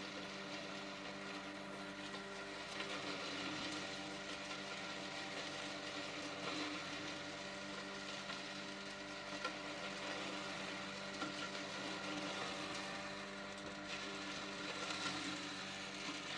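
Feed-chopper blender machine running steadily with a constant motor hum and whir as it shreds cassava leaves.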